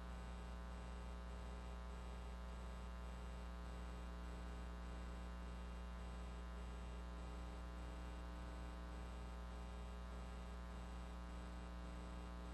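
Faint, steady electrical mains hum with a light hiss on the broadcast audio line: a buzzing stack of even tones that doesn't change.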